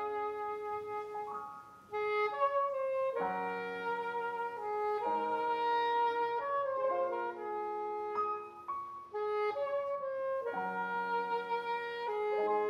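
Soprano saxophone playing a slow melody of long held notes, with other notes sustained underneath as accompaniment, and a brief break about two seconds in.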